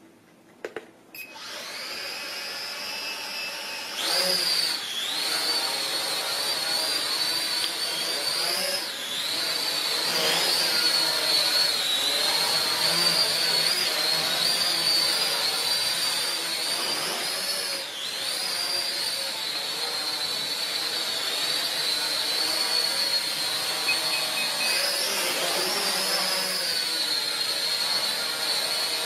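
Holy Stone HS110D mini quadcopter's motors and propellers spinning up about a second in, after a couple of short clicks. It becomes a louder, high-pitched buzzing whine as it lifts off about four seconds in, and the pitch wavers up and down as it flies and hovers.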